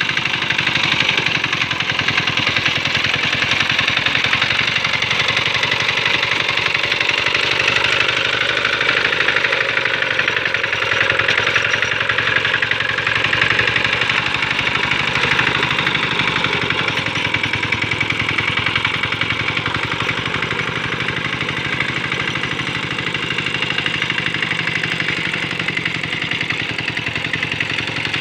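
Mini diesel engine of a Quick Capung Metal hand tractor running steadily, with a rapid, even diesel knock.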